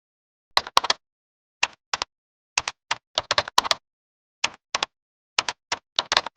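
Keyboard typing: about twenty sharp, irregular key clicks, some single and some in quick clusters, with dead silence between them.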